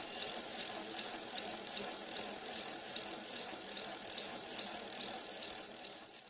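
Bicycle freewheel ticking as the wheel coasts: a steady run of ratchet clicks over a high hiss, fading out near the end.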